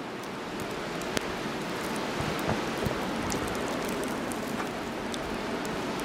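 Blizzard wind gusting through snow-laden trees: a steady rushing hiss that builds a little over the first couple of seconds, with scattered faint ticks.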